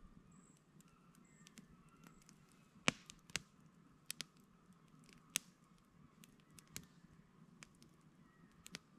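Wood campfire crackling quietly, with scattered sharp pops and snaps, the loudest about three and five seconds in.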